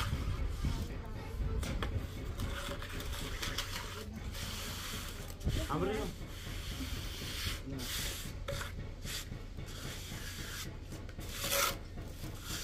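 Repeated scraping and rubbing strokes, a rough hand-worked sound like rasping or sanding, with a louder stroke near the end.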